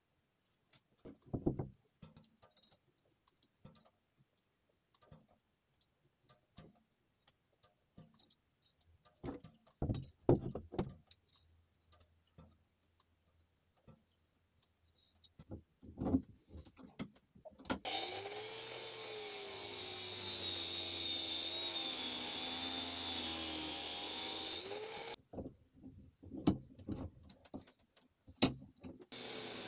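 Metal parts clinking and clanking as they are handled, with a light scratching of a marker. About two-thirds of the way in, an angle grinder runs for about seven seconds, its whine sagging as the disc bears on steel and rising again just before it cuts off; it starts up again near the end.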